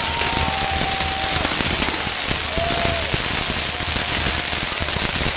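Firework tower (castillo) going off: a dense, steady crackle of firecrackers and spark fountains. A few short whistling tones sound over it, one near the start and one about halfway through.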